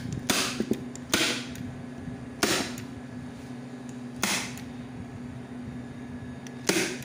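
Hand staple gun driving staples through leatherette upholstery into a chair seat: five sharp snaps a second or two apart.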